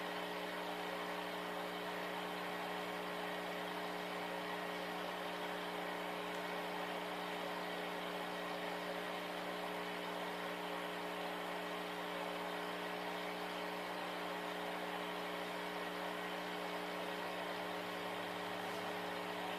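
Steady mechanical hum of a small electric motor, several constant tones over an even hiss, unchanging throughout.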